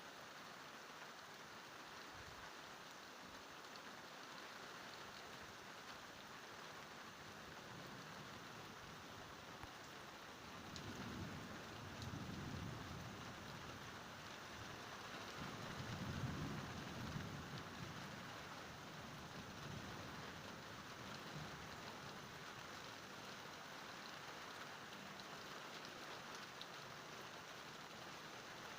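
Steady rain falling during a thunderstorm, with two low rolls of thunder, about ten and sixteen seconds in, the second one louder.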